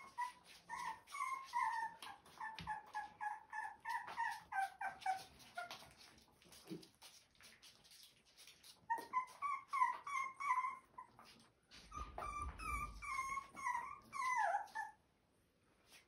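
Rottweiler puppy whimpering in strings of short, high cries, several a second, some sliding down in pitch. There are three runs of cries, and they stop about a second before the end.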